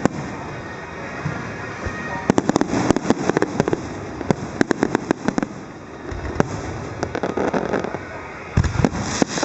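Aerial fireworks bursting: a dense volley of sharp bangs and crackles from about two seconds in, easing off for a few seconds, then another loud burst near the end.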